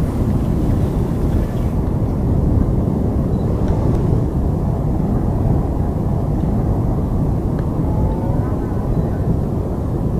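Deep, steady roar of strong wind in the field audio of a large tornado, a dense low rumble with no breaks.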